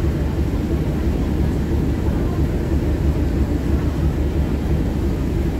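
Deep, steady rumble on board a moving boat, its engine running and the hull under way across the harbour.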